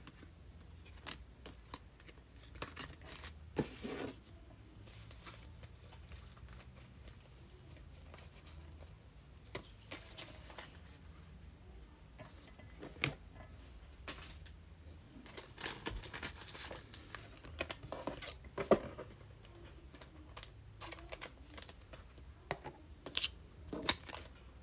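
Trading cards and foil card-pack wrappers being handled: scattered light clicks, rustles and crinkles, with a few busier stretches of crinkling, over a faint steady low hum.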